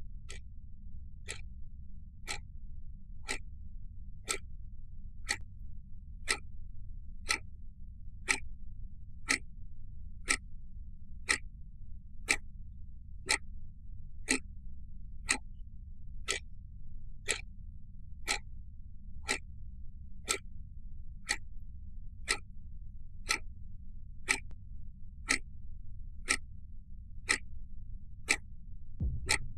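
Quartz wall clock ticking once a second, each tick a sharp click over a steady low hum. Near the end comes a single low thump.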